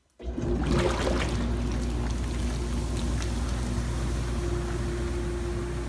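Jetted bathtub's jet pump switching on a moment in and then running steadily: a low motor hum with a steady whine, under the rush of bathwater churning and frothing from the jets.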